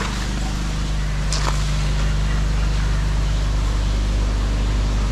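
A steady machine hum under a rushing hiss, with one sharp click about a second and a half in.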